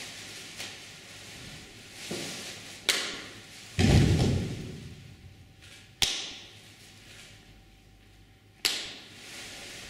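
Percussive hits from a group of performers moving in unison on a wooden stage: three sharp cracks spaced a few seconds apart, and one heavier, deeper thud about four seconds in as the group drops into a crouch.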